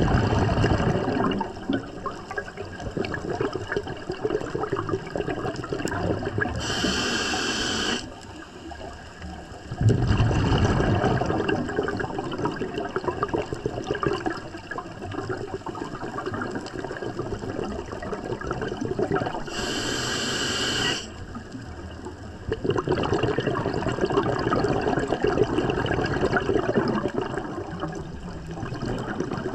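Scuba diver breathing through a regulator underwater. Several seconds of exhaled bubbles alternate with a short, high hiss of inhalation, twice. A third exhale of bubbles starts past the middle.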